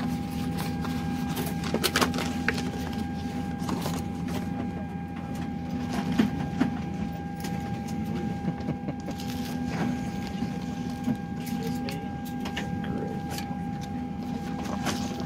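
Steady hum of an airliner cabin with a thin steady whine over it, and short metallic clicks and rustling as a cylindrical metal amenity-kit tin is opened and the wrapped items inside are handled; the sharpest click comes about two seconds in.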